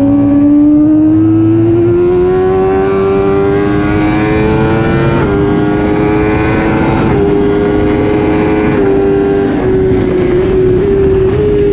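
Onboard sound of a BMW sport bike's inline-four engine at full throttle, revs climbing steadily and then stepping through several quick gear changes, with loud wind rush over the engine.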